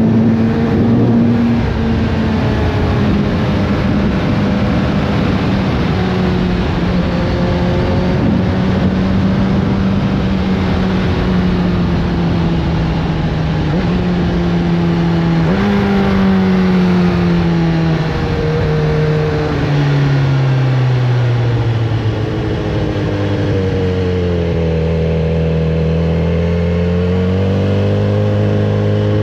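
Kawasaki Z900RS Café's inline-four engine running on the road, its pitch shifting up and down in steps, then falling steadily from a little past halfway as the bike slows, before climbing again near the end. Steady wind noise runs underneath.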